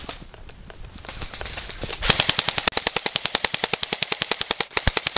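Airsoft electric guns firing full-auto: fainter rapid shots first, then from about two seconds in loud, close rapid fire at about a dozen shots a second.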